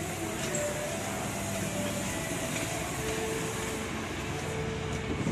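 A steady mechanical hum with a faint tone, over an even wash of background noise.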